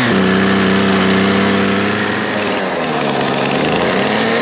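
Husqvarna two-stroke chainsaw running at high revs with a steady pitch. The pitch sags lower about two seconds in and picks back up near the end.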